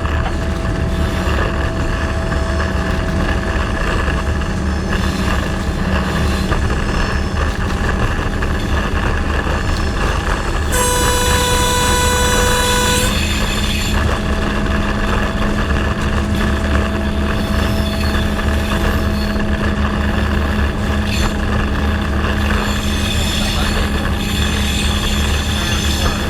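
Diesel locomotive engine running with a steady low drone. Near the middle, a single steady horn blast lasts about two seconds.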